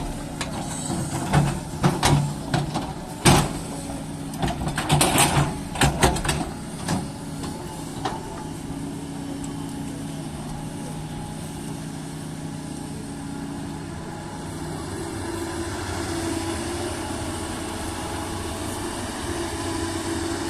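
JCB excavator's diesel engine running, with a run of sharp knocks and clanks over the first several seconds, then a steady engine hum.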